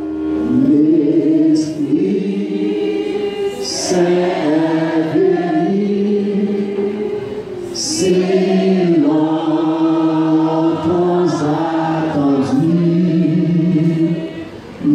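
Church congregation singing a hymn together, in sustained phrases that break about every four seconds.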